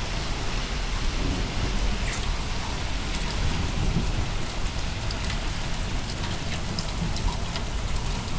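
Heavy rain falling steadily on pavement and parked cars, a dense hiss with scattered drop splashes and a deep rumble underneath.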